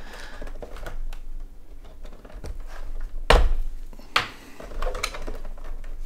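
Plastic clicks and knocks of a robot vacuum's brushes being removed and handled, with one sharp knock about three seconds in and a smaller click about a second later.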